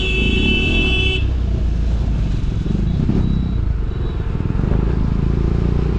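KTM Duke 250's single-cylinder engine running under way, with wind noise. A vehicle horn sounds for about the first second, then stops.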